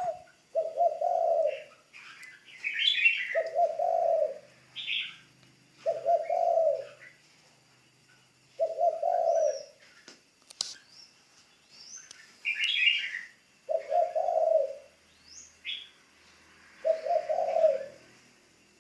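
Decoy spotted dove cooing: six low, roughly one-second coos spaced a few seconds apart. Short, higher chirps of small birds come between the coos, and there is a single sharp click about ten seconds in.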